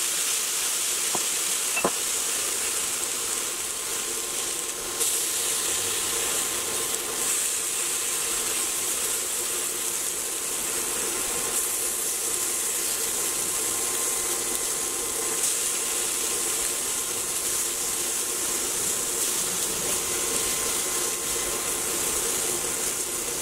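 Tofu slabs frying in sesame oil in a hot skillet: a steady sizzle, with soy sauce just dripped onto them. A single sharp click about two seconds in.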